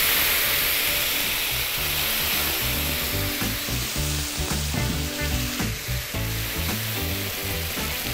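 Water poured into a hot pot of toasted vermicelli and rice, sizzling loudly and slowly dying down. Background music plays underneath.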